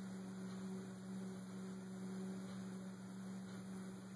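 Steady low electrical hum with a faint hiss underneath, unchanging throughout.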